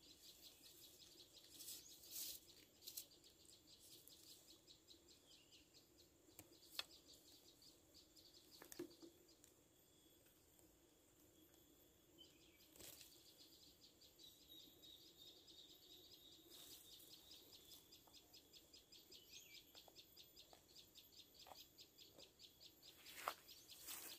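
Near silence with faint bird chirping. A few soft clicks and rustles come from hands working a fishing line and hook, the sharpest about a second before the end.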